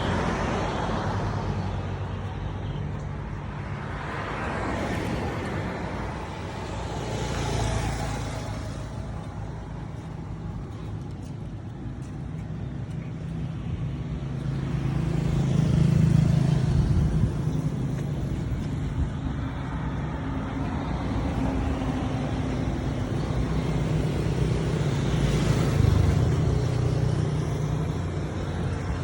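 Road traffic: vehicle engines running and several vehicles passing, rising and falling in level, the loudest passes about halfway through and near the end.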